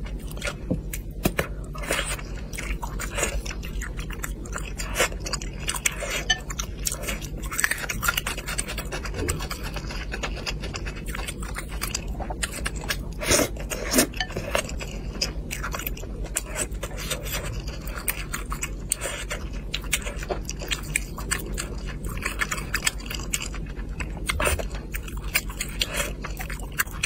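A person chewing food close to the microphone, with a dense run of irregular short clicks and mouth noises.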